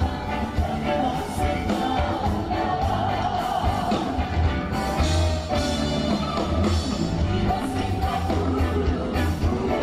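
Music with a singing voice over a strong bass, playing steadily as accompaniment to a dance performance.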